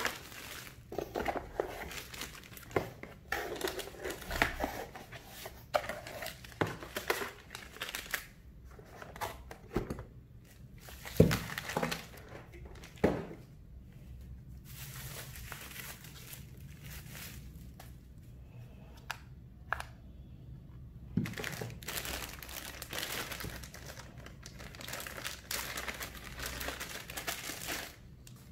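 Plastic packaging bags crinkling and rustling as bagged power cables and small accessories are handled and unwrapped, with a couple of sharper knocks about halfway through as items are set down.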